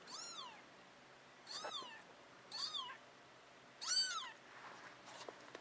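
A young kitten mewing four times: short, high-pitched cries that each rise and fall in pitch, about a second apart.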